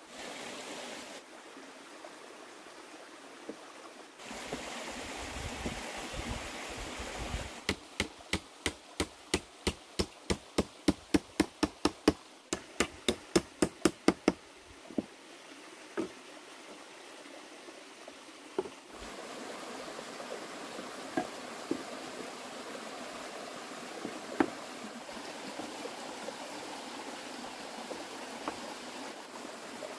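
A tool striking wood: a quick run of knocks, about three a second for several seconds, then a few scattered single knocks, over a steady background hiss.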